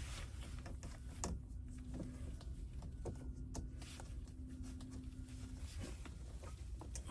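Scattered light clicks and knocks from hands working on plumbing pipe and fittings, over a steady low hum that stops near the end.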